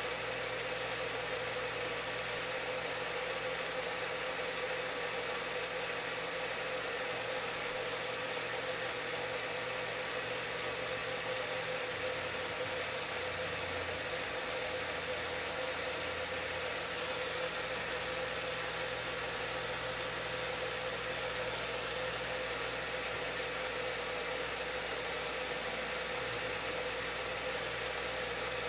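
Steady mechanical running noise with a hiss, unchanging in level.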